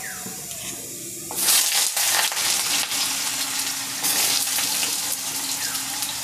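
Diced potatoes going into hot mustard oil in a kadai: a loud sizzle with crackling starts about a second and a half in as the first handful hits the oil, and keeps on as more potatoes are added.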